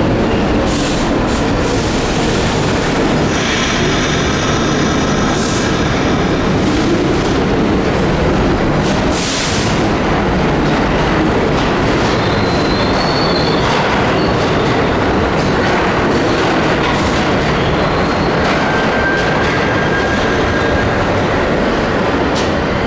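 R46 subway train running into the station on the center track, a loud steady rumble. Wheels squeal in thin high tones that come and go, with a few sharp clacks.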